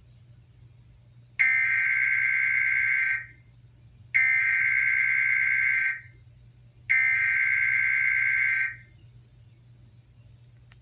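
Emergency Alert System SAME header: three identical bursts of digital data tones, each just under two seconds long with about a second between them. The header is the coded part of the alert, here for a severe thunderstorm watch.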